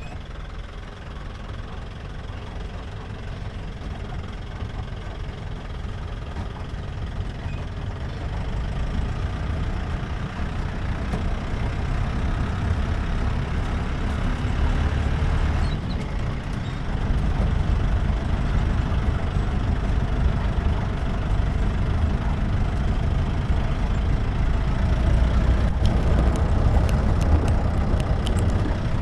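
Jeep engine running under way, with rumbling road and tyre noise, growing gradually louder, with a brief drop about halfway through.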